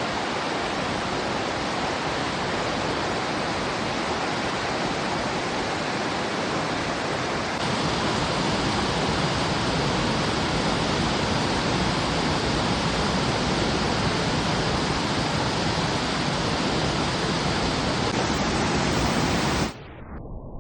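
Fast-flowing mountain river rushing over rocks below a waterfall: a steady, dense rush of water. It grows a little louder about a third of the way in and cuts off abruptly near the end.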